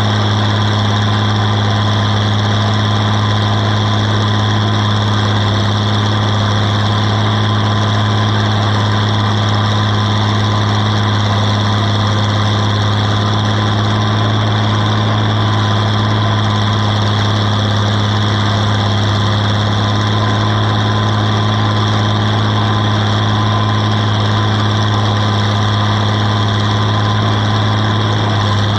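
Oliver farm tractor's engine running steadily under load, pulling a plow through grass sod, with a strong steady low hum.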